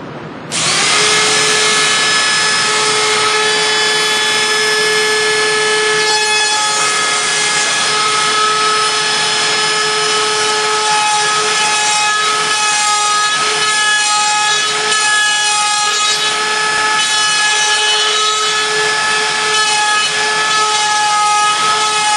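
Electric router starting up and running with a steady high whine, its bearing-guided bit cutting a fin box slot in a surfboard along a template; the pitch wavers a little as it cuts. It switches off suddenly at the end.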